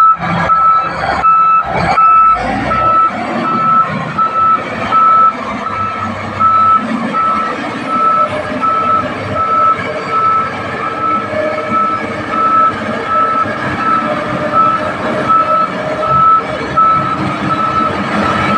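Bulldozer's reversing alarm beeping steadily, about two beeps a second, over the running diesel engine and machinery noise.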